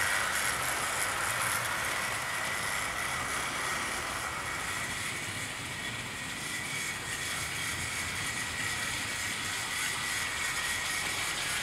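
00 gauge model train running along the track: a steady motor whine over the noise of the wheels on the rails, a little quieter in the middle.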